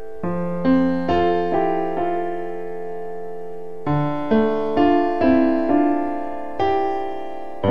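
Background piano music: slow notes and chords that each ring on and fade, with one chord held for a couple of seconds in the middle.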